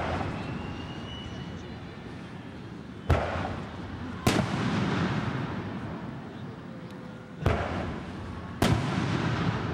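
Aerial fireworks shells bursting: four sharp bangs, two close together about three and four seconds in and two more about seven and a half and eight and a half seconds in. Each is followed by a long rolling echo that slowly dies away.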